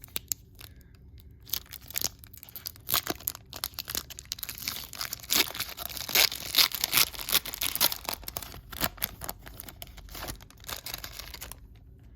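A trading card pack wrapper being torn open and crinkled by hand, with dense crackling that stops abruptly near the end.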